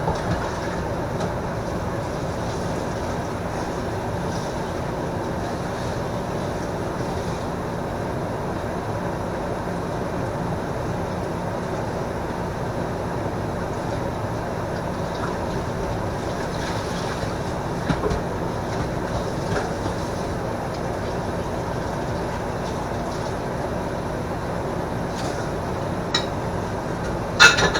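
Microwave oven running with a steady, even hum, and a few light clicks near the end.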